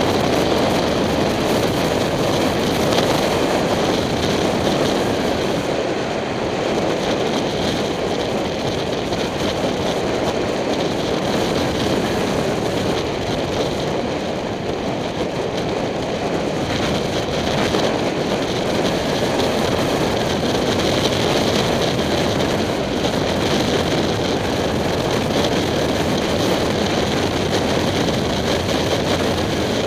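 Steady rush of wind over a helmet-mounted camera on a moving motorcycle, with the 2007 Kawasaki Ninja 250's parallel-twin engine running beneath it; it eases off slightly a couple of times.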